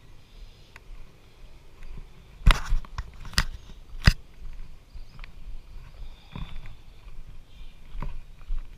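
Handling noise on a handheld camera: knocks and rubs of fingers on the camera, with three sharp clicks in quick succession in the middle, among softer thuds of footsteps as the camera is carried along.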